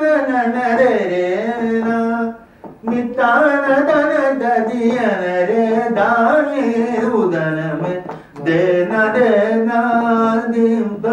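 A man singing a Hindustani classical bandish unaccompanied, with long held notes and gliding melodic turns, pausing briefly for breath about two and a half seconds in and again about eight seconds in.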